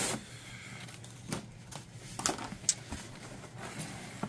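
Cardboard being handled: the flaps of a corrugated shipping box rustle and scrape, with a few sharp knocks as a smaller cardboard product box is lifted out of it. The loudest rustle comes right at the start.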